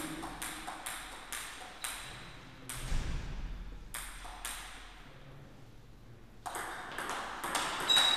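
Celluloid-type table tennis ball bounced repeatedly before a serve, a sharp click about twice a second; after a short lull, a rally starts with the ball clicking off bats and table in quicker succession.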